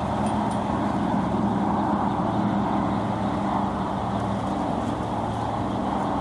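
Steady hum and rush of a running vehicle, with a low engine drone under an even road noise.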